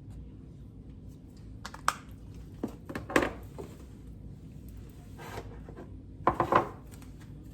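A measuring spoon clinking and tapping against a mixing bowl while spice is measured out, a handful of light knocks scattered through, the loudest cluster near the end.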